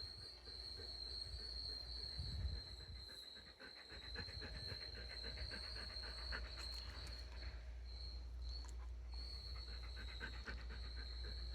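A dog panting quickly and faintly, most clearly in the middle of the stretch. Under it runs a steady high-pitched whine with a low hum.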